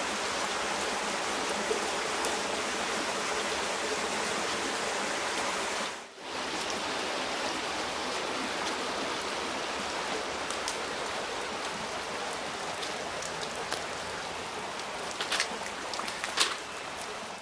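Shallow stream water running over rocks: a steady rushing hiss, broken briefly about six seconds in. A few sharp clicks near the end.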